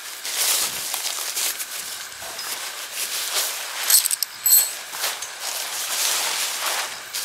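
Crinkly rustling of the Lanshan 1 ultralight tent's thin fabric as it is unrolled from its stuff sack and smoothed out by hand. About four seconds in come two short metallic clinks from the bag of aluminium tent pegs.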